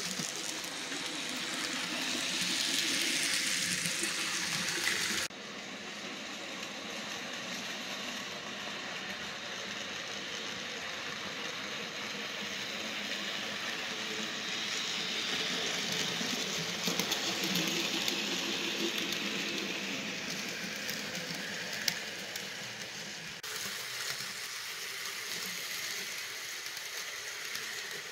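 Model train running on the layout track, a steady whirring hiss of motor and wheels on rail. It swells twice as the train comes close, and changes abruptly at cuts about five seconds in and near the end.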